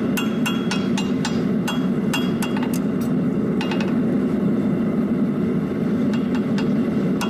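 Farrier's hand hammer striking a red-hot steel keg horseshoe on the anvil while forging an extended heel: about a dozen ringing blows at roughly three a second, stopping about three and a half seconds in. A steady low hum lies underneath.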